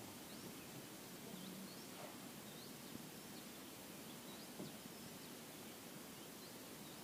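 Faint outdoor ambience: a steady soft hiss, with short high rising bird chirps about one or two a second.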